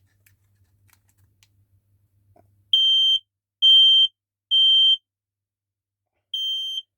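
Smoke alarm's piezo horn sounding its three-beep evacuation pattern: three loud, high, steady beeps about half a second each, a pause, then the next set starting near the end. A faint hum and a few small clicks come before the first beep, about three seconds in.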